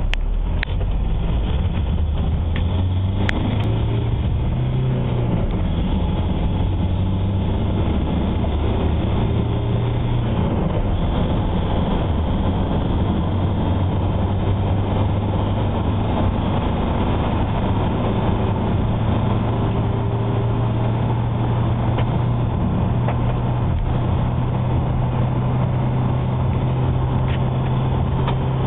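Toyota Hiace 2.5 D-4D four-cylinder turbodiesel engine pulling hard at full throttle from a standstill, heard from inside the cab. Its note rises in pitch and drops back at each upshift, then climbs steadily through the last gear.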